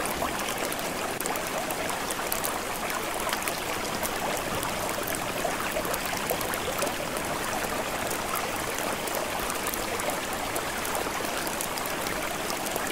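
Steady rain splashing: an even hiss scattered with many small drop ticks.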